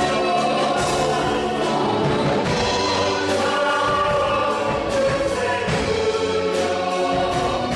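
Church praise team singing a worship song together, several voices with instrumental accompaniment, steady and unbroken.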